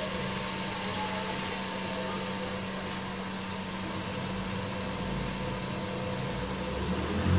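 Steady hiss and hum of onion-tomato masala frying in a pot on a gas stove, with a faint constant tone underneath.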